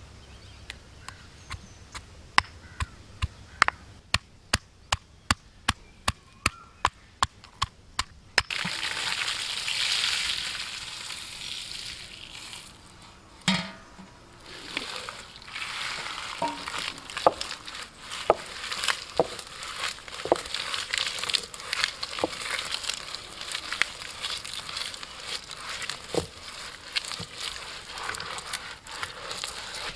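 Garlic being pounded with a stone pestle in a small stone mortar: sharp knocks, about two a second. From about eight seconds in, dried red chillies and spices being crushed on a flat grinding stone with a stone roller: a rough scraping and crunching with many small cracks.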